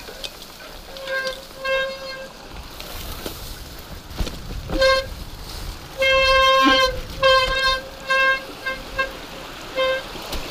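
Mountain bike disc brakes squealing in repeated bursts of one steady, horn-like pitch as the rider brakes on and off down a rocky descent, with the rumble of tyres on the trail underneath.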